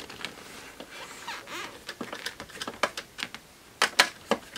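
A nut driver tightening the nuts on a cooling fan's mounting screws: scattered light clicks and scrapes of metal on metal, with two sharp clicks a little under four seconds in.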